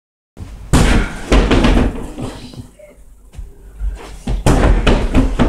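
Thuds of punches and kicks landing on a freestanding punching bag, in two quick flurries: one about a second in, another near the end.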